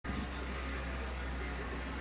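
Music with a steady beat, over a low steady hum.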